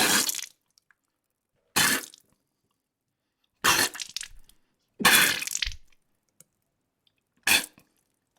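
Blood squirt sound effects: five separate short, wet squirting splashes with silence between them. The fourth is the longest, at about a second.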